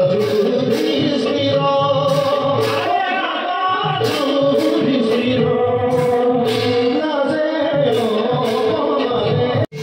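Bhaona theatre music: singing over a steady beat of percussion strikes. It cuts out for an instant near the end.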